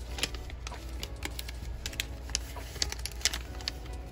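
Clear plastic sticker packaging and paper crinkling and rustling as they are handled and pushed back into their package: an irregular string of sharp clicks and crackles.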